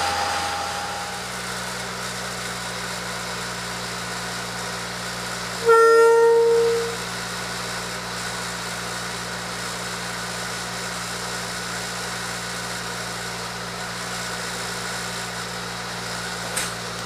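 Kalamazoo rail motorcar engine idling steadily. About six seconds in, a horn sounds one toot of about a second, the loudest sound here.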